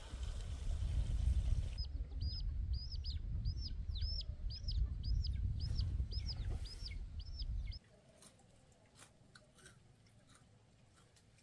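A chick peeping: a run of about a dozen high, arched peeps, roughly two a second. Under it is a loud low rumble that cuts off suddenly about eight seconds in, leaving only faint clicks.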